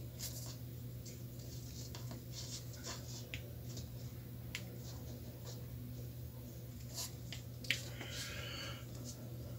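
Light clicks and rustles of alligator-clip test leads being handled and clipped onto a resistor at a bench power supply's output terminals, with one sharper click near the end, over a steady low hum.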